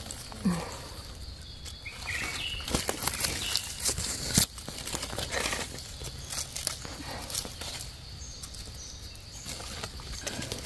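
Dry leaf litter rustling and crackling under boots and gloved hands as wild mushrooms are picked from the forest floor, with scattered twig clicks and one sharp snap a little after four seconds in.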